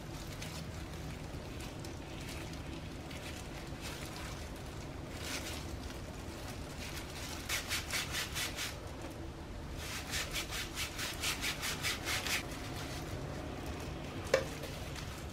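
Bamboo sushi rolling mat rasping and clicking in quick rhythmic strokes, about five a second, as a kimbap roll is squeezed and rolled in it, in two runs. A single sharp click near the end.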